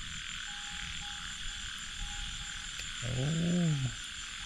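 A steady chorus of frogs in the paddy fields, with one short pitched call that rises and then falls about three seconds in.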